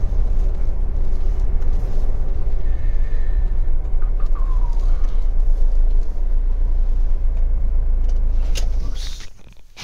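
Low, steady rumble of the Bailey Autograph 75-4 motorhome rolling slowly, heard from inside the cab, cutting off suddenly near the end.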